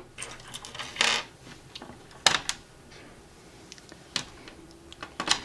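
Small metal screws clicking and clinking as they are handled and pushed through a plastic mounting board: a cluster of clicks about a second in, a sharper click a little after two seconds, and a few more near the end.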